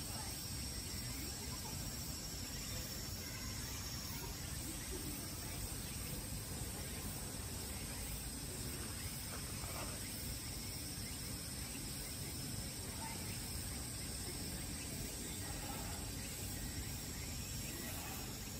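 Steady outdoor background noise: a low rumble and hiss with a faint, steady high-pitched drone. There are no distinct calls or knocks.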